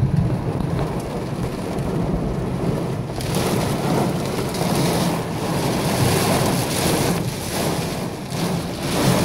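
Heavy rain mixed with nickel- to quarter-size hail pouring down on pavement and the car, over a steady low rumble. The downpour turns harsher about three seconds in.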